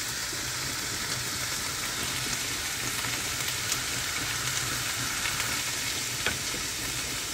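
Minced beef with onion and tomato paste sizzling in a nonstick frying pan, a steady hiss as the last of its moisture cooks off, with a couple of faint clicks.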